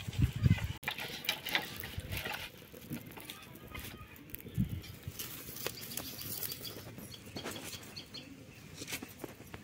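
Dry leaves and straw burning in a clay wood stove, crackling and rustling. The crackling is loudest in the first two seconds, then settles into scattered small crackles.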